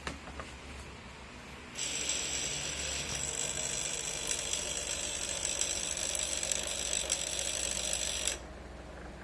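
Air conditioner making a strange, rapid mechanical rattle for about six seconds that then cuts off suddenly, leaving a low steady hum. This is the odd noise after which the unit stops.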